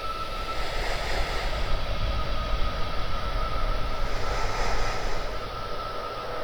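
Dark horror sound-effect ambience: a dense low rumble and hiss with a thin steady high tone running through it, swelling slightly in the middle.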